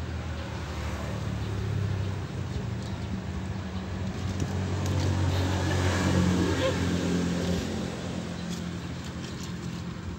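An engine running steadily, getting louder about halfway through and then easing off.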